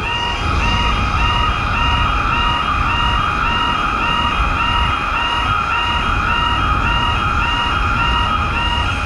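Japanese railroad crossing alarm ringing steadily about twice a second, over the rumble of a train passing through the crossing.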